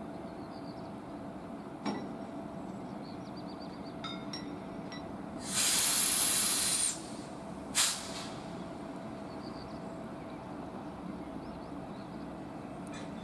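Compressed air hissing out of a railway locomotive's air-brake system for about a second and a half, then a short second blast about a second later. Underneath is a steady electrical hum, with a few light clicks.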